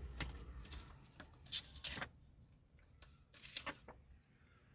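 Faint rustling and a few soft clicks, over a low hum that fades out about two seconds in.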